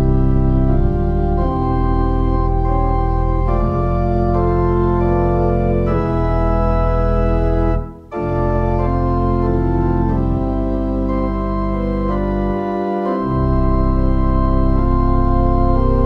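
Church organ playing sustained chords over a deep bass line, with a brief break between phrases about eight seconds in.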